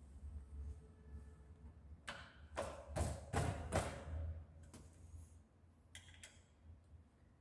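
A quick cluster of knocks and clatters from hand tools and metal parts being handled against the scooter's engine casing at the kickstarter side, followed by a few light clicks, over a steady low hum.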